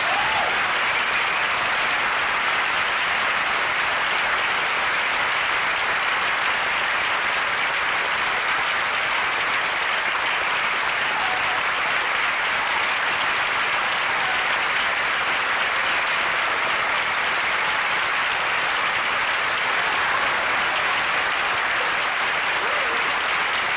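Audience applauding steadily, many hands clapping together without a break.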